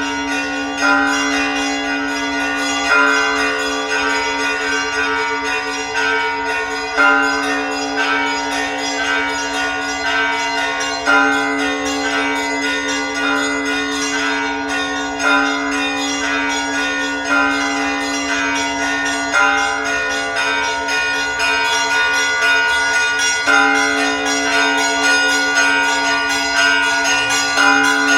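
Church bells ringing: a heavy bell struck about every two seconds, its hum sustained between strokes, with smaller bells ringing over it.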